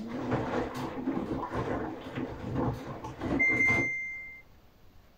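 Samsung AddWash front-loading washing machine turning its drum with laundry tumbling inside. A little over three seconds in, the control panel gives one steady beep about a second long, and the drum sound stops soon after.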